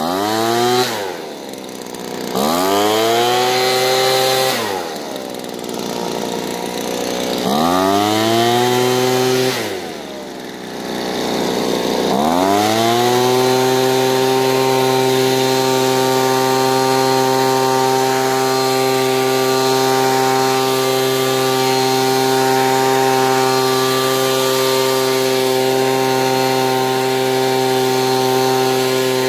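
Handheld leaf blower running, throttled down and back up three times in the first twelve seconds, then held steady at high speed with a constant whine.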